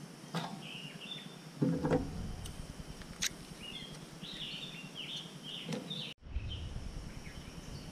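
Small birds chirping here and there, with a few clinks and knocks of utensils handled at a table. The loudest is a dull knock about two seconds in.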